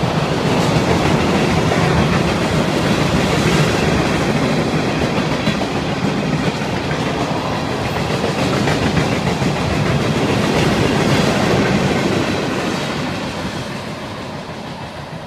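Freight train of tank cars rolling past, steel wheels running on the rails with a continuous rumble. It grows fainter near the end as the last cars go by.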